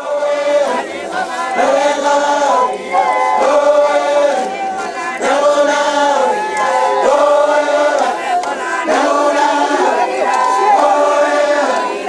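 A crowd of West Papuan highlanders singing a chant together in unison, a short phrase repeated over and over about every two seconds.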